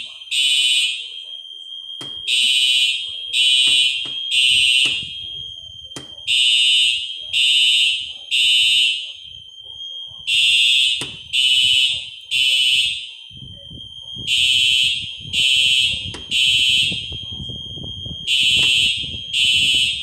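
Building fire alarm sounding in the temporal-three pattern: three high-pitched half-second beeps, then a pause, repeating every four seconds. This is the standard evacuation signal.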